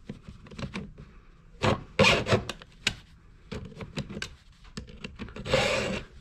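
Stihl 2-in-1 file, a round file and a flat file in one guide, stroked across the cutters of a Stihl MS261 C chainsaw chain: a few irregular rasping strokes of file on steel, the longest near the end.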